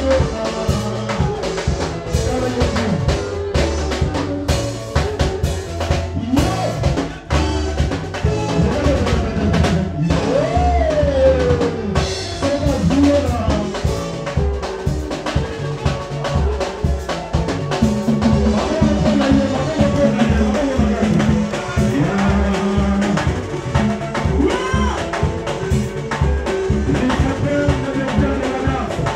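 Live band playing: a drum kit keeps a steady beat with bass drum, snare and rimshots, under electric guitar and bass guitar.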